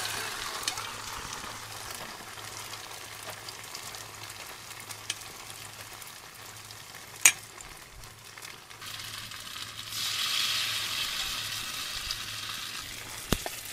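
Food sizzling as it fries in hot oil in a pan. The sizzle thins out in the middle and swells again about ten seconds in, with a sharp click about seven seconds in.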